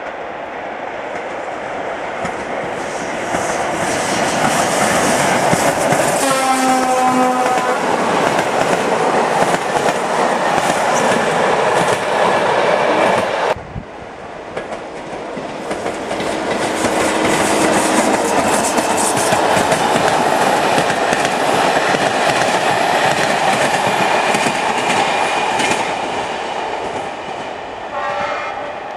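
Škoda-built class 163 electric locomotive hauling a passenger train past, wheels clattering over the rail joints under a steady rumble, its horn sounding once for about a second about six seconds in. After an abrupt cut the train noise builds again as the coaches roll by, with a short horn blast near the end.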